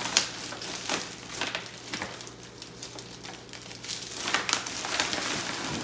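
Plastic drawstring trash bag rustling and crinkling as it is lifted out of the bin and its drawstring handles are pulled tight and tied, with a sharp click just after the start.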